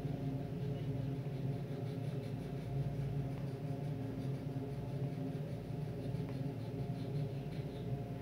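Steady low hum from an unseen running machine, with the faint scratching of a wax crayon being rubbed back and forth on paper.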